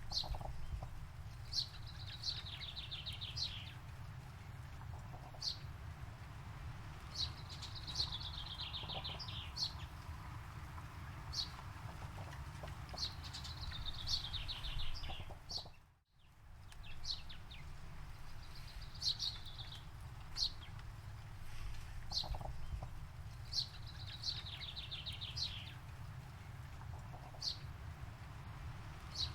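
A songbird repeating a high phrase every five or six seconds: a sharp single note followed by a quick, stuttering series of notes that falls in pitch. A steady low rumble runs underneath, and the sound briefly fades out and back in about halfway through.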